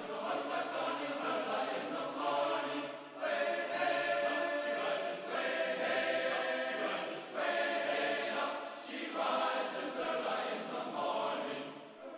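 Background music: a choir singing held phrases, fading out near the end.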